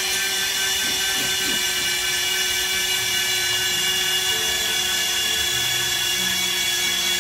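Stationary bike trainers spinning under hard, fast pedalling, giving a steady high-pitched whine.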